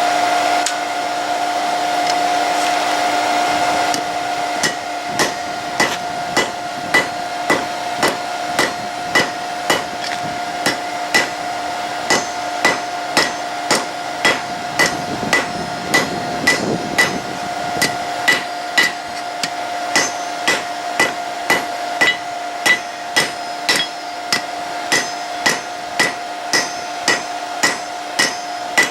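Hammer forging hot high-carbon steel on an anvil: even strikes about one and a half a second, each with a short metallic ring, starting about four seconds in. Under the strikes, and alone before them, is the steady hum and hiss of the forge's air blower.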